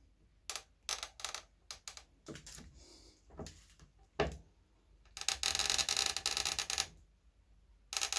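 Small hand tap being turned to cut a thread, giving short clicks and scrapes, then a creaking scrape of nearly two seconds about five seconds in and another near the end. It is a sound the repairer finds worrying, though the tap is cutting.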